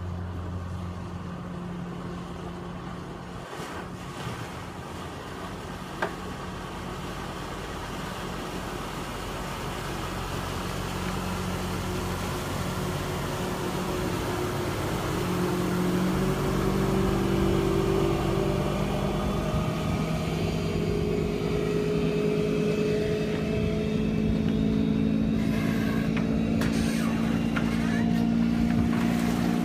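Motorboat engine running steadily, then rising in pitch and loudness about halfway through as the boat picks up speed.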